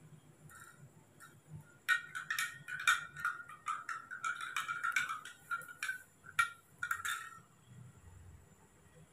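Metal teaspoon stirring milk in a glass tumbler, clinking rapidly against the glass for about five seconds from about two seconds in, then stopping.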